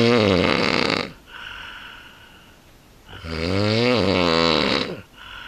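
A person snoring: two loud snores about three seconds apart, each lasting a second or more, with a softer breathy breath between them.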